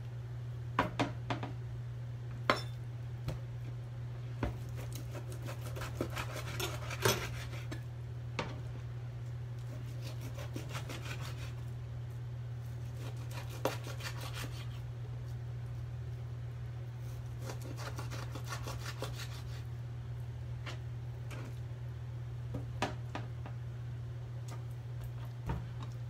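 Scattered knocks, clicks and rubbing of raw pork slices being handled on a plastic cutting board, with small utensil and pan clatter, the knocks most frequent in the first several seconds. A steady low hum runs underneath.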